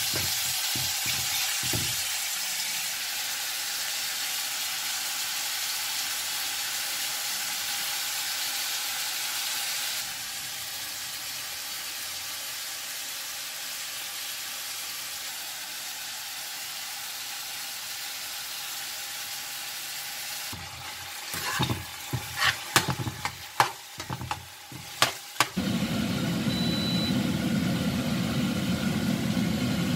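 Ground pork and diced carrots and onions sizzling in a frying pan, with a metal spoon stirring and scraping against the pan in quick clicks at the start and again in a cluster of sharp knocks about three-quarters of the way through. Near the end a low steady rumble joins the sizzle.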